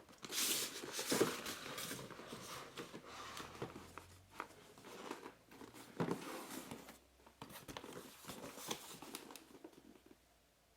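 Cardboard sleeve being slid off a keyboard box by hand: scraping and rustling of card with a few light knocks as the box is handled.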